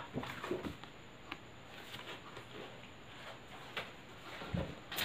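Paper flashcards being handled and swapped: faint scattered rustles and small taps, with a low thump a little over four and a half seconds in and a sharp click at the end.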